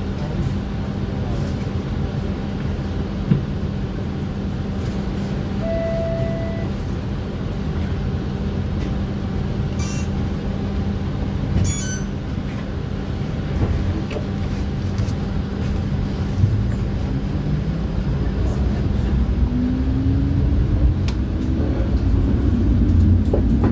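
TTC streetcar running: a steady electrical hum over low rumble, with the traction motor whine rising in pitch near the end as the car picks up speed.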